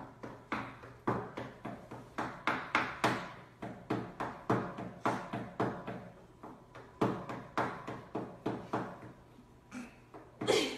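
A dog chewing on a rubber hamburger squeaky toy, squeezing out short squeaks over and over, about two or three a second, with a louder one near the end.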